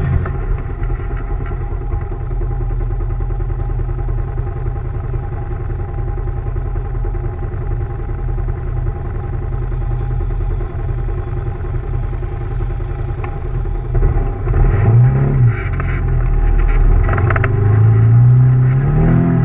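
Side-by-side UTV engine idling, heard from inside the cab. About three-quarters through there is a short rev, and near the end the revs rise and hold as it pulls away.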